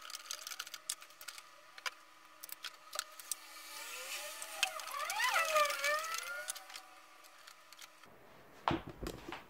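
Plastic cups and sponge plugs being handled on plastic planter trays: scattered light clicks and knocks, with a stretch of squeaky plastic-on-plastic rubbing in the middle as cups are pushed into the holes of a planter lid.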